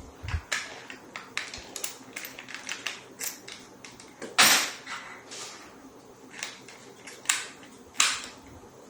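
Scattered light clicks and taps of tools being handled, with a louder knock about four and a half seconds in and two more near the end.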